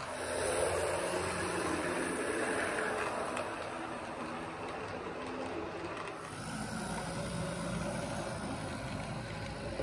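Model freight train running on the layout's track: the cars' wheels rolling over the rails in a steady rattle with a faint hum, loudest in the first few seconds and deepening to a lower rumble after about six seconds.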